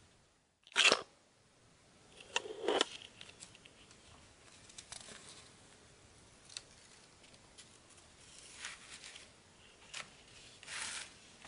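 A stiff parchment paper cutting being unfolded and handled: scattered crisp paper rustles and crackles, the sharpest about a second in, with softer rustles later.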